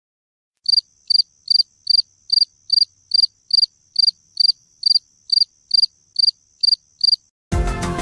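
Night-time cricket chirping, played as a ringtone: short, high chirps evenly spaced a little over two a second, over a faint steady high tone. Near the end the chirps stop and music cuts in abruptly.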